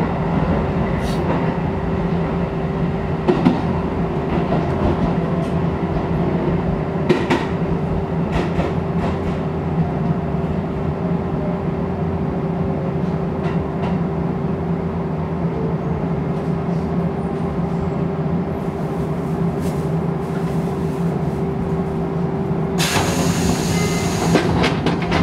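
Shin-Keisei electric train heard from inside the cab: a steady hum with scattered clicks, then a loud burst of hissing near the end.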